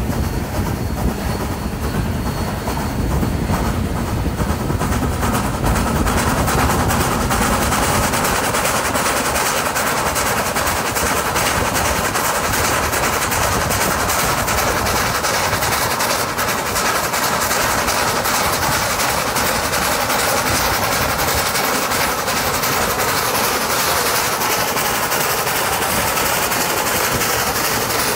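Steam train running at speed alongside on a parallel track: NSW C32 class locomotive 3265's exhaust mixed with the steady clatter of wheels on rails. A deep rumble in the first few seconds gives way to a brighter, higher rushing sound.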